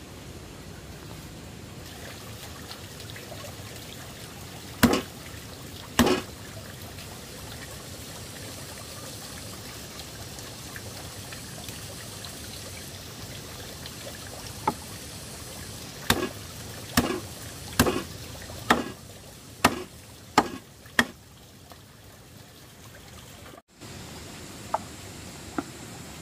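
Steady trickle of running water, with about a dozen sharp knocks over it: two early, a run of seven at roughly one a second in the middle, and two fainter ones near the end.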